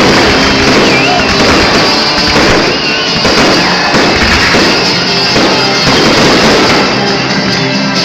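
Fountain fireworks hissing and crackling as they throw sparks, mixed with loud music playing over them.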